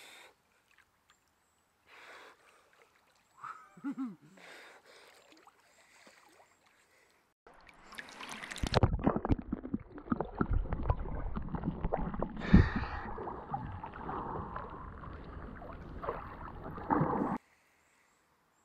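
A waterproof action camera held under lake water: a muffled, dense rumble with bubbling and many small knocks, one sharp knock partway through, then a sudden cut-off. Before it goes under there are only faint water sounds and a brief vocal sound.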